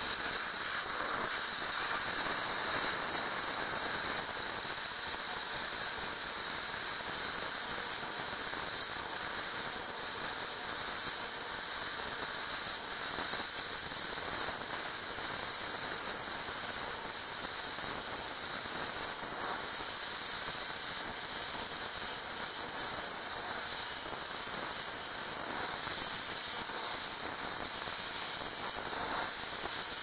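Hand-held plasma cutter cutting through metal plate: the torch gives a steady, high hiss as the arc runs along the cut.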